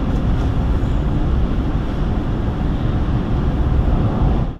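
Steady road and engine drone inside a moving pickup truck's cabin, mostly low rumble, dropping out abruptly for a split second at the very end.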